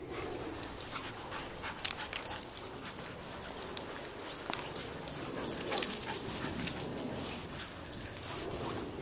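Several dogs moving about on a lawn and mulch bed: light irregular rustles and small clicks from their paws and movement, with a sharper tick about six seconds in.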